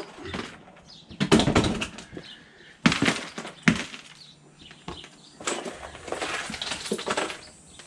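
Rubber pails knocked upside down to free frozen blocks of ice into a cardboard box: a heavy thump a little over a second in, then two sharp knocks around three to four seconds in. Near the end, the ice blocks scrape and bump as they slide out of the box into a plastic cooler.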